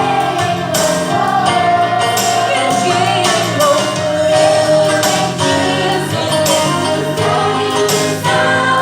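A choir singing a song with instrumental accompaniment, a tambourine shaking along.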